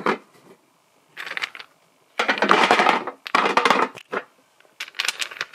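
Wooden toy blocks clattering into a metal tin, poured in by the handful in four spells of rapid knocking.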